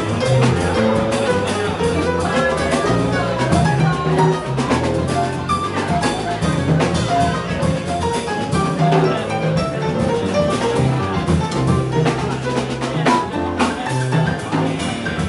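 Jazz sextet playing live: drum kit and double bass under piano and horn lines.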